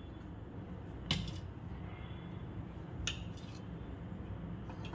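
Steel spoon clinking against the cookware as spoonfuls of ghee are put into a non-stick kadhai: two sharp clinks, about a second in and about three seconds in, over a low steady hum.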